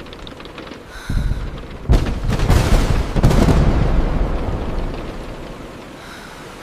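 Thunderclap over steady rain: a low rumble about a second in, a sharp crack just before two seconds, then rolling thunder that fades out over several seconds.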